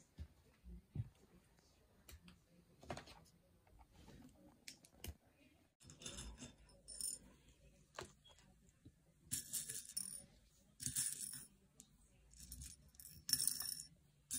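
Small plastic Lego pieces clicking and knocking, then rattling and clinking together in four short bursts over the second half.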